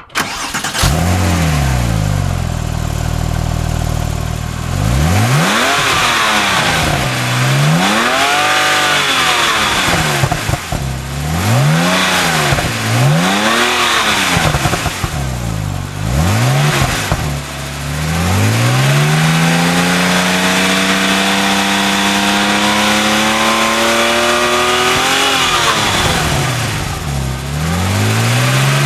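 Porsche 911 Turbo's twin-turbo flat-six firing up and settling to idle, then blipped about six times in quick succession. It is then held in one long rev that climbs for several seconds before it drops back to idle.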